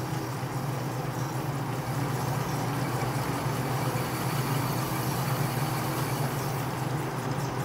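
Atlas metal lathe running steadily with a constant motor and drive hum, while a bristle brush scrubs chips off the spinning workpiece next to the parting tool.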